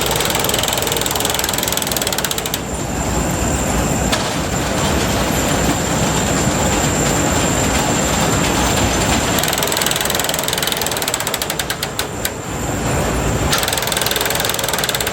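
Allis-Chalmers combine running, its feeder chain and flights giving a loud mechanical clatter with bursts of rapid ratchet-like clicking a few seconds in and again near the end. The chain is loose and its flights are catching on the bottom.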